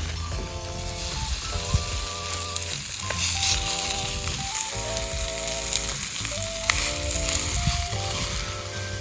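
Spare ribs sizzling hard in a hot pan, a steady frying hiss that swells twice, under background music of sustained synth-like chords.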